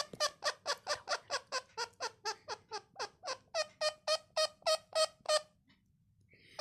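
Parrot giving a rapid, rhythmic laughing call: short 'ha'-like notes, about four a second, that stop about five and a half seconds in.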